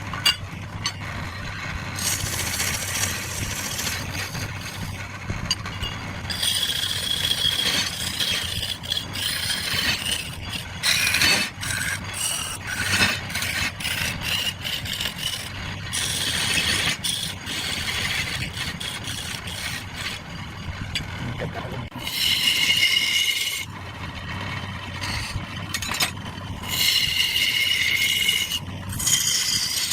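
Wood lathe running with a steady hum while a tool is worked against the spinning wood in spells, a scraping, rasping sound that at times carries a high whine.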